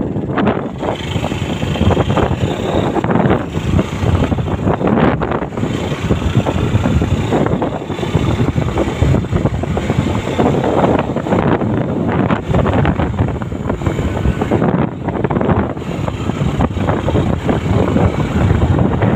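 Wind buffeting the microphone over the engine and road noise of a vehicle moving fast, loud and gusty throughout.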